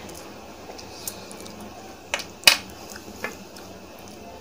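Eating sounds: a few sharp clicks and taps over low background noise, the loudest about two and a half seconds in.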